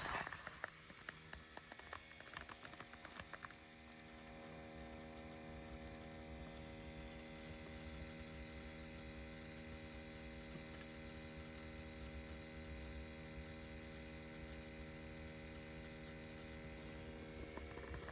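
Steady electric buzz of a Subaru Outback's evaporative-emission (EVAP) pump at the rear passenger side, running by itself while the car is parked. It is a normal part of the fuel-vapour system. A few clicks and rustles come first, and the buzz settles in clear and unchanging after about three and a half seconds.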